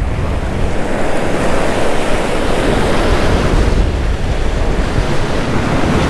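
Surf breaking and washing against the stone blocks of a rock jetty, a steady rush of water, with wind buffeting the microphone in a low rumble.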